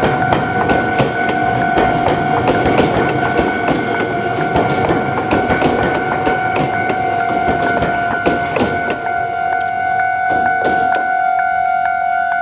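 Japanese level-crossing alarm ringing steadily while an Iyo Railway electric train runs over the crossing, its wheels clattering on the rail joints; the train noise fades about three-quarters of the way through while the alarm keeps ringing.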